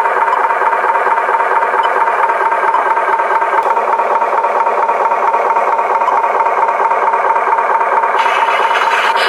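Battery-powered toy truck running: a steady, rattling whir with a constant high pitch and no deep tones, unchanging in level and pitch throughout.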